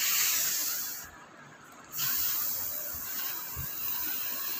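A long hissing "shh" sound, breaking off for about a second and then going on again.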